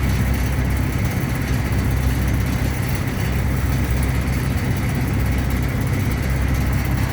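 Truck engine idling steadily, an even low rumble heard from inside the cab with the air conditioning running.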